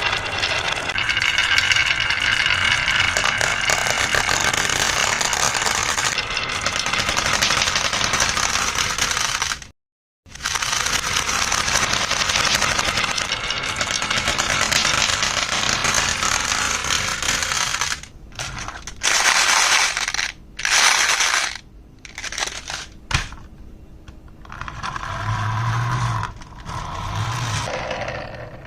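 Marbles rolling and clattering down HABA wooden marble run tracks: a dense, continuous rattle that cuts out suddenly for a moment about ten seconds in, resumes, then breaks into separate short bursts of clatter in the last ten seconds.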